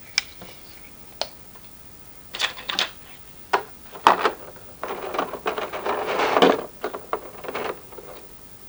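Hands handling a plastic action figure and its packaging: scattered sharp plastic clicks, with bursts of rustling, the longest about halfway through.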